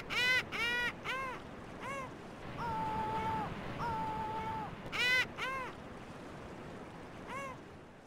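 Gulls calling: a fast run of short calls, about four a second, trailing off in the first second, then two long, level calls in the middle, followed by a few more short calls.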